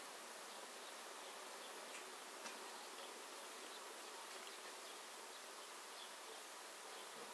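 Honey bees buzzing around the hives: a faint, steady hum, with a light tick about two and a half seconds in.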